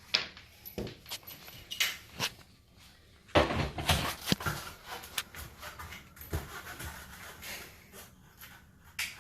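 Scattered clicks and knocks from a metal air-conditioning register grille being handled and fitted to a ceiling register box, with a cluster of louder knocks about three to four seconds in.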